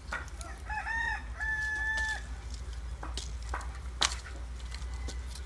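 A rooster crows once: a few short rising notes and then one long held note. Around it come sharp knocks and clatters of split firewood being picked up and handled, the loudest about four seconds in.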